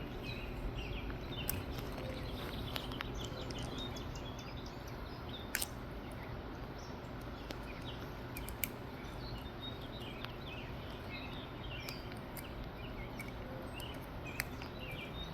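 Steady outdoor ambience of light rain, with faint bird chirps scattered through it and a few sharp clicks.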